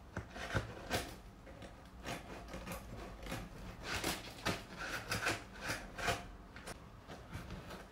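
Faint, irregular clicks and scrapes of a bushcraft hand drill, its metal auger bit and handle being handled and fiddled with in the hands.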